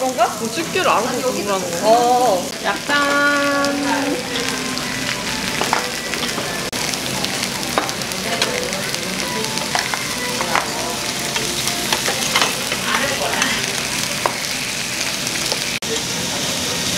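Pork belly, sausages and kimchi sizzling on a round tabletop grill plate: a steady frying hiss. Voices chatter over the first couple of seconds, and a short steady tone sounds about three seconds in.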